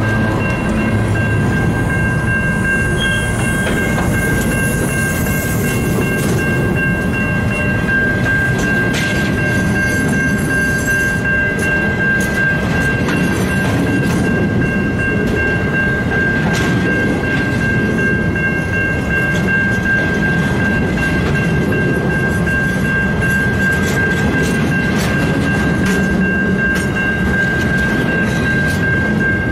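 A long rake of grain hopper wagons rolling past close by: a steady noise of steel wheels on the rails, with a few sharp knocks along the way. A steady high-pitched ringing tone sounds over it throughout.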